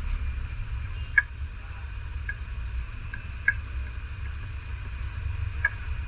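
Small sharp ticks of metal tweezers and a soldering-iron tip against a circuit board while a replacement voltage regulator IC is soldered onto a TV mainboard, about five in all, the loudest about a second in and midway, over a steady low hum.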